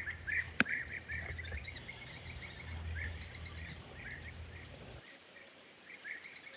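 A bird chirping in a quick series of short, repeated calls, over a low steady rumble that cuts off about five seconds in. One sharp click sounds shortly after the start.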